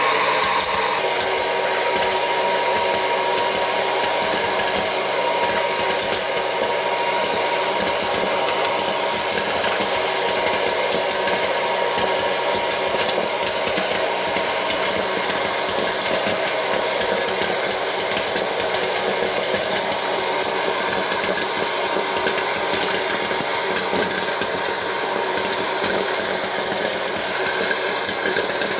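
Vintage Wear-Ever Popcorn Pumper electric hot air popper running, its blower giving a steady rushing noise, with scattered light ticks of kernels popping.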